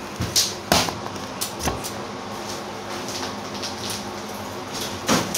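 Several sharp knocks and clunks inside the food truck's metal interior in the first two seconds, and another just after five seconds, over a steady hum.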